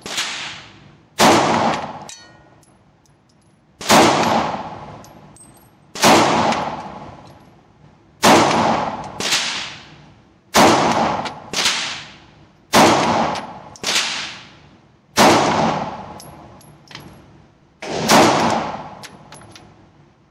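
Walther PPQ SC 9mm pistol firing about a dozen single shots at an unhurried pace, one every second or two. Each shot rings on in the echo of an indoor range.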